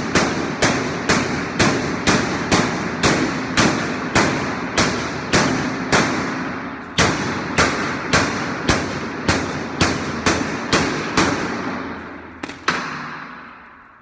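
Washing machine knocking rhythmically at about two knocks a second over the rush of the running drum. The knocks stop about eleven seconds in, two last ones follow, and the running noise winds down and fades out.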